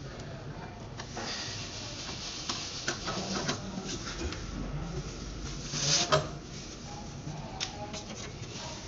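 Hands handling cables and fittings under a wash basin: scattered small clicks and rubbing, with one louder scrape about six seconds in.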